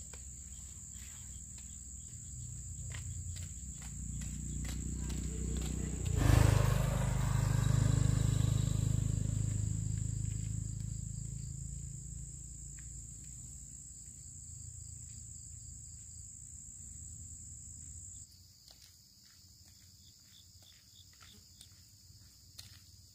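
Insects singing in a steady, high-pitched drone that weakens about 18 seconds in. Under it, a low rumble swells to a peak about six seconds in, with a sharp knock, then fades away.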